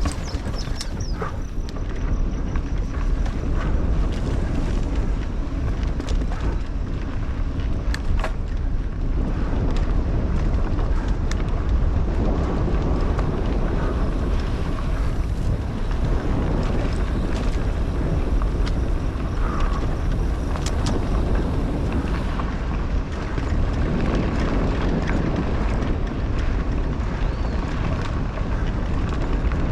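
Wind buffeting the helmet-mounted camera's microphone over the steady rumble of a mountain bike rolling along a dirt singletrack trail, with a few short clicks and rattles from the bike.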